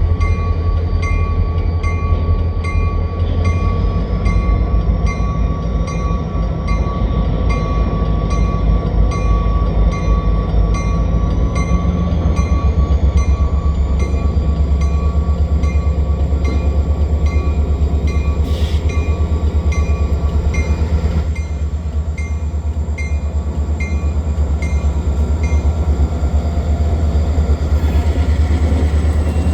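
Diesel freight train running by, a heavy steady low rumble from the EMD locomotives and cars, with a faint regular tick about twice a second above it.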